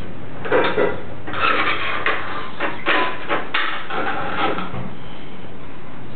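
Plastic toys knocking and rattling on a hard tiled floor as a pull-along toy telephone is handled and dragged by its cord: a run of irregular clatters over a few seconds, then it settles.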